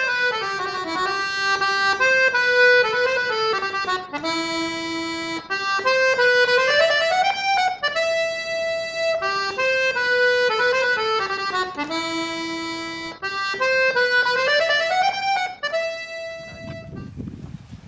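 Background music: an instrumental melody of held notes, one phrase played twice, stopping shortly before the end.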